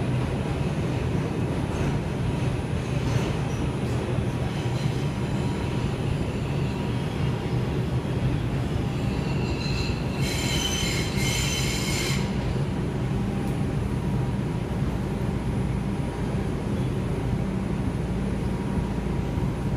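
Inside an R142 subway car running between stations: a steady rumble of the wheels and running gear. About halfway through, a high squeal lasts about two seconds.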